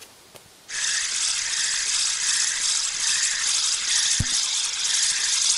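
Spinning reel being wound in: a steady fast rattling whir of the reel's gears starting under a second in, with a single dull knock about four seconds in.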